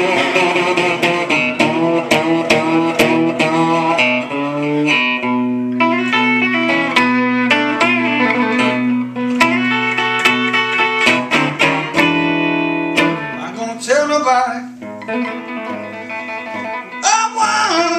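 Semi-hollow electric guitar played solo in a blues style: picked melody notes over held low bass notes, with a busier run of bending notes late on.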